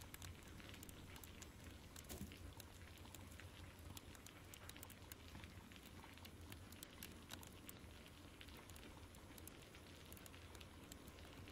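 Faint ambience of a crackling log fire, with irregular sharp pops and snaps over a steady hiss of rain.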